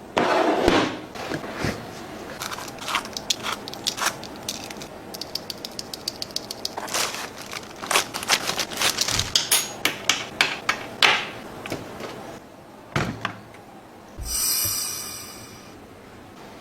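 Keystrokes on a Newmen GM680 mechanical keyboard with Outemu switches, clacking irregularly, singly and in quick typing runs. A short swishing noise comes near the end.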